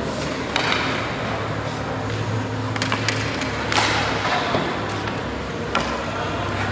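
Hockey skates scraping the ice, with several sharp clacks of sticks and pucks, over a steady low hum.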